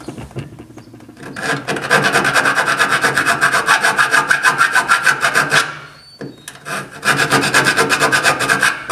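Flat metal hand file rasping back and forth in a small drilled hole in a steel truck bed wall, in quick even strokes, enlarging the hole to fit an LED bed light. The filing pauses briefly about six seconds in, then starts again.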